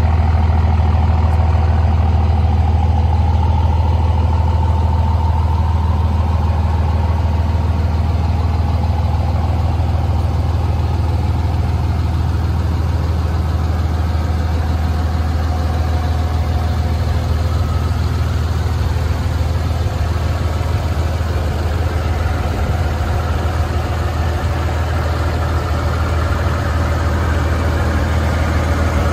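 Dodge Ram 3500 dually pickup's engine idling steadily, a deep even drone.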